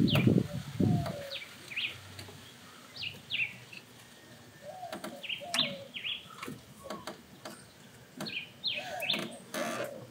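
Small birds chirping in short, quick falling notes, again and again, over light clicks and knocks of hands working at the front of the engine. A heavier rustle and knock sits in the first second.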